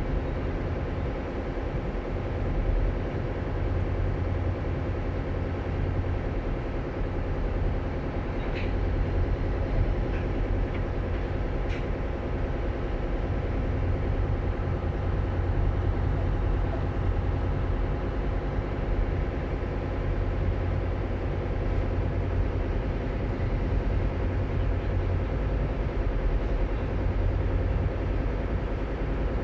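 Ships' diesel engines running steadily in a deep, even drone with a low hum, as a tugboat works a frigate off its berth.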